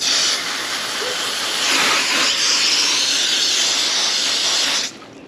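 Garden hose running, water rushing out in a steady hiss of fresh well water after the hose was flushed; it cuts off abruptly near the end.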